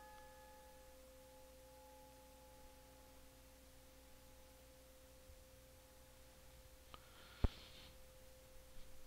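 Faint, slowly dying ring of an altar bell struck at the elevation of the chalice. The higher tones fade within the first second while one lower tone lingers. A single sharp knock sounds about seven and a half seconds in.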